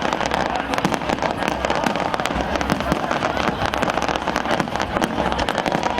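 Fireworks display: a dense, rapid run of crackling and popping from bursting shells, with no single bang standing out.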